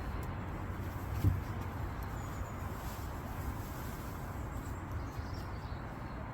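Wind buffeting the microphone: a steady low rumble, with one louder bump about a second in.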